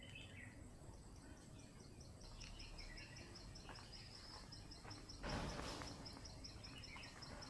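Faint outdoor ambience with birds calling and a rapid run of high chirps, about five a second, from about two seconds in. A brief rush of noise about five seconds in is the loudest part.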